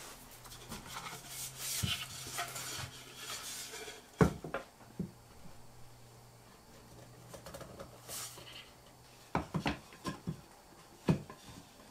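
Wooden parts of a bread bin being handled and fitted together: wood rubbing and scraping for a few seconds, then one sharp knock about four seconds in, and a cluster of lighter knocks near the end.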